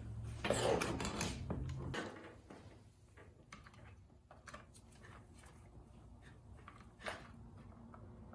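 Small clicks, knocks and scrapes of plastic and metal parts as gloved hands work the throttle linkage out of a Homelite XL chainsaw's handle. The handling is louder in the first couple of seconds, then thins to scattered light clicks, with one sharper knock near the end.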